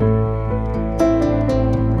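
Background music: gentle instrumental with plucked guitar-like notes over a steady bass, changing notes about twice a second.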